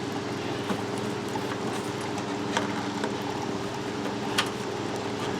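A few sharp plastic clicks as a car's plastic cowl panel is worked loose from its clips, over a steady low hum.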